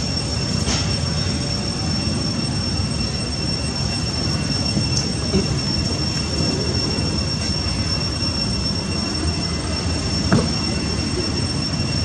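Outdoor ambience: a steady, high-pitched insect drone over a constant low rumble, with one short sharp sound about ten seconds in.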